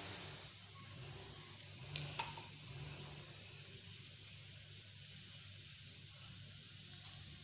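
A hand rubbing flour and oil together in a terracotta bowl: a faint, steady hissing rustle, with two light clicks about two seconds in.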